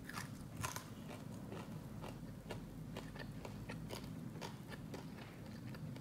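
Faint, irregular crunching of someone chewing the crispy scorched rice crust of claypot rice.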